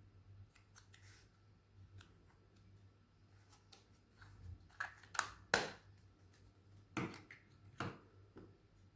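A faint steady low hum, then several short sharp clicks and rustles of objects being handled in the second half.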